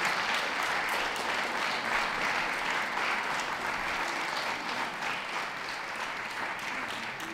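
Audience applauding, a steady patter of many hands that slowly fades toward the end.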